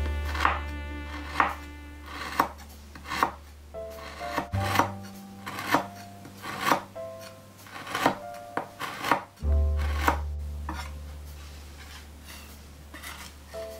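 Tojiro Pro chef's knife chopping a bouillon cube on a cutting board, sharp knocks about once a second; in the last few seconds the flat of the blade scrapes and crushes the pieces into powder. Background music plays underneath.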